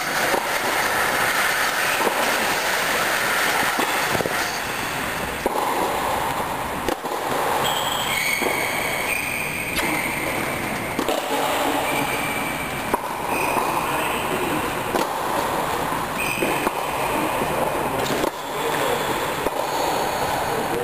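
Tennis rally: a racket hits the ball every one to three seconds, each hit a sharp crack, over a steady loud rushing noise that fills the indoor hall. Short high squeaks come through now and then.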